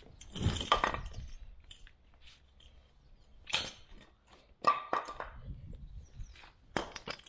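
Hydraulic bottle jack and its wooden block being handled and pulled out on a concrete floor: a series of sharp metal clinks and knocks, the loudest about half a second in.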